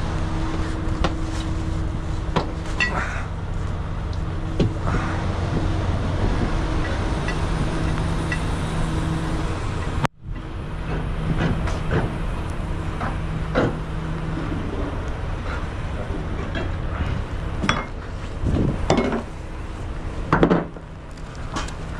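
Semi truck's diesel engine idling with a steady low hum, with scattered metallic clinks and knocks over it. The sound cuts out for a moment about halfway through, and a louder knock comes near the end.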